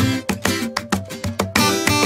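Intro music with quick, evenly spaced plucked-string notes, about four a second.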